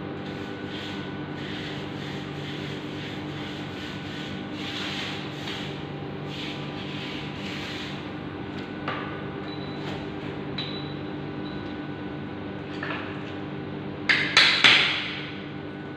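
Hand tool working ceramic tile and mortar: repeated scraping strokes, a few single clicks, then about three loud knocks in quick succession near the end. A steady hum runs underneath.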